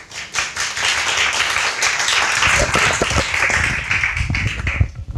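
An audience applauding: many hands clapping, which starts just after the opening and dies away near the end.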